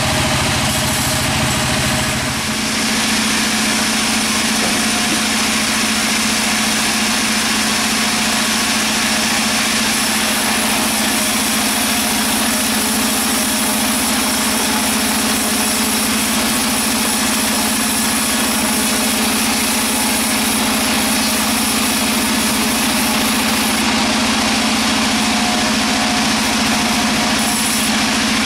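Sawmill machinery running with a steady, engine-like hum; its low tone shifts about two seconds in, then holds steady.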